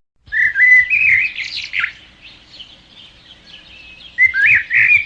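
A bird chirping and warbling in quick up-and-down phrases: one bout of about two seconds, a lull, then a second bout starting about four seconds in.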